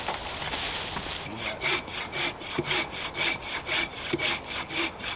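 Hand saw cutting into a log, in quick, even back-and-forth strokes that start about a second in.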